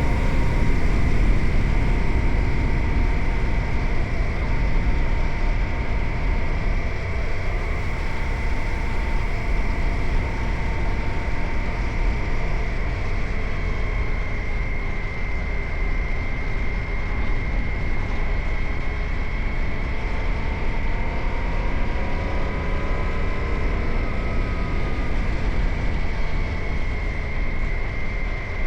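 Suzuki GSX-8R's parallel-twin engine running at a steady cruise, its pitch drifting slowly up and down, under heavy wind rush.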